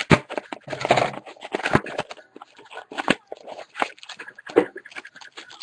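A sealed box of trading cards being opened by hand: irregular rustling, crinkling and tearing of the cardboard box and its wrapping, with sharp crackles.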